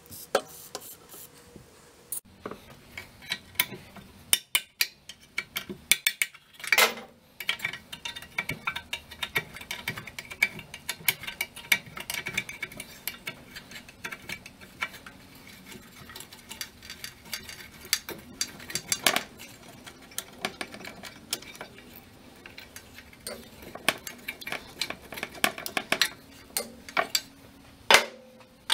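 Steel hand tools clicking and clinking against the metal fittings of an old outboard motor as its nuts are worked loose: an irregular run of sharp metallic clicks and taps, with a few louder knocks.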